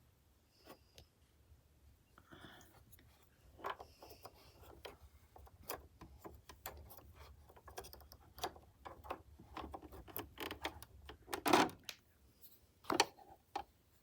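Sewing machine bobbin case being fitted into the hook area by hand: a string of small, irregular clicks and taps, the loudest a little after eleven seconds in and another near thirteen, over a faint low hum.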